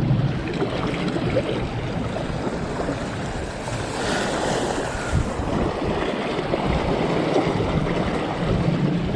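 Waves washing against the shore, with strong wind buffeting the microphone. A louder wash of surf comes about four seconds in.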